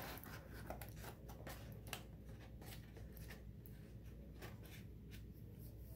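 Faint rustling and light irregular ticks of stiff cardstock being handled, as a curved paper cap crown is pressed and shaped by hand.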